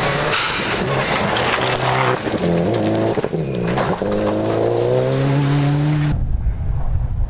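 Subaru Impreza rally car's flat-four engine at high revs on gravel, its pitch climbing and dropping through gear changes, over the hiss of tyres sliding and throwing stones. About six seconds in it gives way abruptly to a low rumble.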